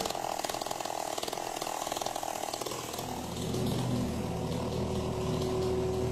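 Chainsaw on a chainsaw guitar running at idle with a rapid rattling tick. About three seconds in, a steady low hum joins it and the sound gets a little louder.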